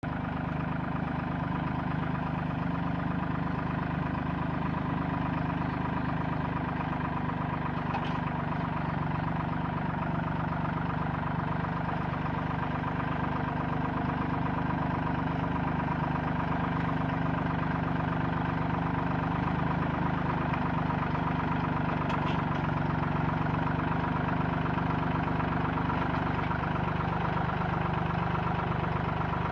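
Farm tractor's diesel engine running steadily as the tractor creeps along towing a hay trailer and side-mounted bale loader, with two faint ticks along the way.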